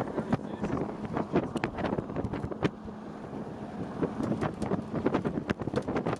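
Rain pelting the car in a storm: dense, irregular sharp taps over gusting wind on the microphone, with a faint steady low hum underneath.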